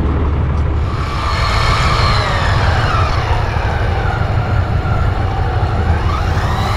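Electric fishing reel's motor winding line on a heavily bent rod: a whine that falls in pitch over about two seconds, holds low, then rises again near the end, over a steady low rumble.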